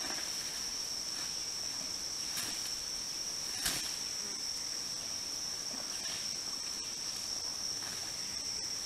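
Steady high-pitched drone of forest insects, with a fainter, higher band above it. A single sharp click comes a little before halfway through.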